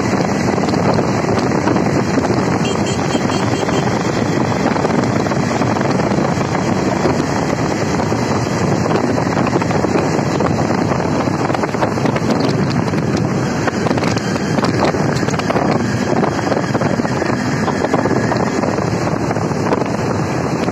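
Wind rushing over the microphone of a motorcycle riding at speed, mixed with the bike's engine running; a steady, loud rush.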